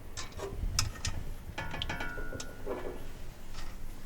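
Small metal clicks and clinks as wing nuts are handled and threaded onto the studs holding a bill changer's coin chute, with a brief ringing tone a little after halfway.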